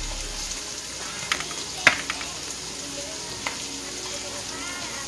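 Diced onions and green bell peppers sizzling as they sauté in a nonstick pot: a steady frying hiss. A few sharp clicks sound over it, the loudest about two seconds in.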